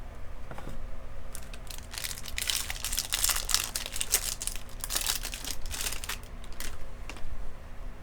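Foil wrapper of a Topps baseball card pack crinkling and tearing open, a dense crackle starting about a second in and dying away near the end.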